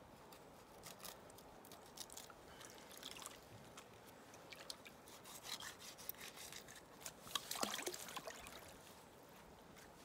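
Faint water splashing and dripping with scattered small clicks and rubbing, as a fish is gutted with a knife by gloved hands in shallow river water. The handling noises are irregular and come thickest near the end.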